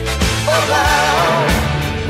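Music: a song with a wavering melody line over sustained bass notes.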